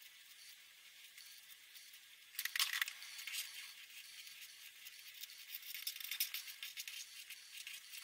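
Felt-tip marker scratching and tapping on paper as lettering is coloured in: a thin hiss at first, then irregular scratchy strokes and clicks from about two and a half seconds in.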